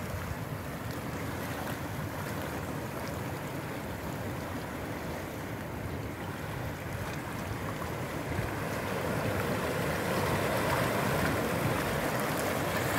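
Sea water washing and splashing against shore rocks, a steady rush that swells louder in the last few seconds.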